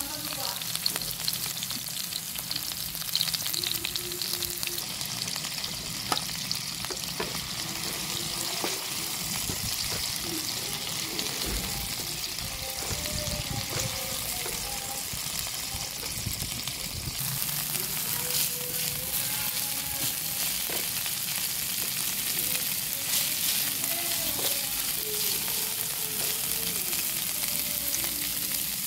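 Oil sizzling in a nonstick frying pan as chopped garlic, spring onion, diced vegetables and shredded chicken are stir-fried, with a spatula scraping and knocking against the pan.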